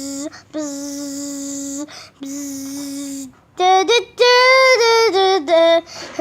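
A child imitating a goal horn by voice: three long, steady buzzing notes at one low pitch, then from about halfway a goal-song tune sung as short, higher 'da' notes.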